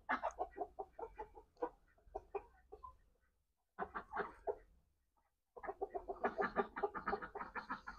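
Chickens clucking in quick runs of short notes, several a second, cutting out to silence twice briefly near the middle.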